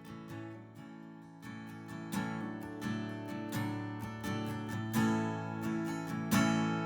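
Acoustic guitar strumming chords in an instrumental passage of a worship song. It softens about a second in, then the strums build and grow louder.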